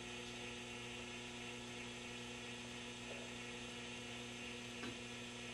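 Steady electrical mains hum from a vintage Sentinel 430 tube television chassis, switched on through a variac at reduced voltage for its first power-up with the tubes warming.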